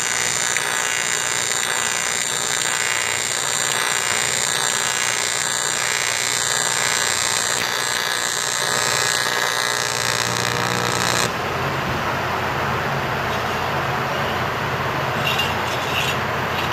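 AC TIG welding arc on 6061 aluminium, a steady buzzing hiss with a fixed high whine, from a Miller Syncrowave 250. About eleven seconds in it cuts off abruptly, leaving steady workshop hum with a couple of light clicks near the end.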